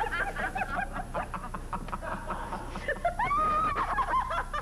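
A woman laughing hard in quick breathy bursts, breaking into a long high-pitched laughing cry about three seconds in.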